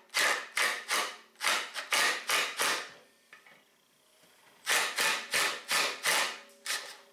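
Cordless impact driver hammering in short trigger taps, about three a second, to break loose a torch-heated, Loctite-held T25 Torx screw on a Polaris secondary clutch. There are two runs of taps with a pause of about a second and a half between them.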